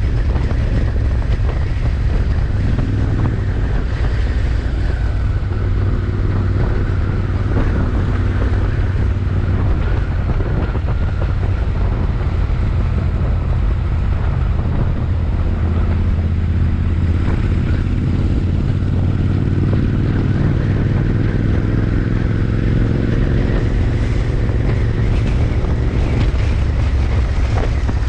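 Royal Enfield Interceptor 650's parallel-twin engine and exhaust running steadily under way, the engine note rising and falling a little, with wind on the microphone.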